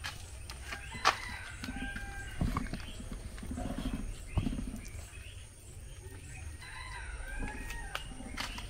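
Domestic fowl calling a few times in short, arching cries. Under them are soft sounds of dough being worked by hand in a bowl, with a few sharp knocks.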